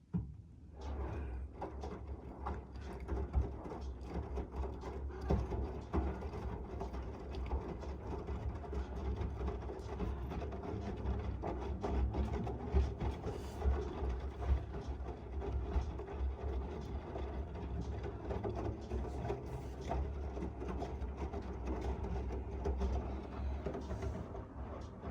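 Miele W1 front-loading washing machine running: a steady low hum from the motor and drum, with many irregular small clicks and rattles.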